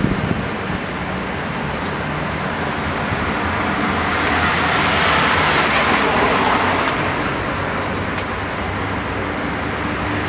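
Street traffic: steady engine and road noise, swelling as a vehicle passes around the middle, then easing off.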